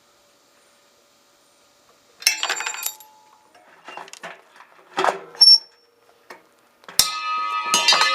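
Loose metal parts of a washing machine clinking and clattering with a ringing tone. It comes in three spells, starting about two seconds in, and the loudest, longest clatter comes near the end.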